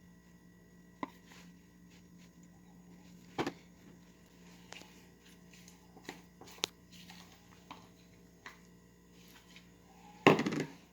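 Utensil and plate clicks and light knocks, scattered every second or two, as Nutella-coated strawberries are turned out onto sliced banana on a plate. A louder brief clatter comes near the end.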